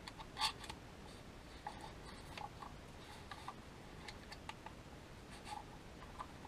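Faint clicks and light rubbing of hands handling a plastic DJI Mavic Air 2 remote controller, with a sharper click about half a second in.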